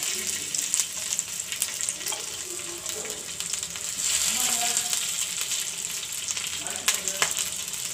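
Masala-coated chicken feet sizzling and crackling in oil on a flat tawa as they are turned over with metal tongs, with a couple of sharp clicks near the end.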